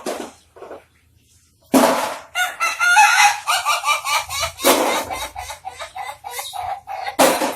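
Ayam ketawa (Indonesian laughing chicken) rooster crowing: after a brief pause, a long run of rapid chattering notes like laughter, with a few louder harsh bursts mixed in.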